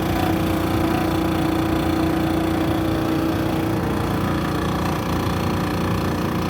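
Whirlpool Cabrio gas dryer running on its newly installed drive motor: a steady mechanical running noise with a strong hum that fades out about three and a half seconds in. The noise comes from a problem with the blower fan, which the owner thinks he disturbed while removing the old motor.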